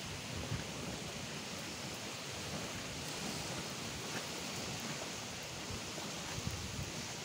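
Gentle surf washing on the beach, a steady hiss, with a few faint low knocks.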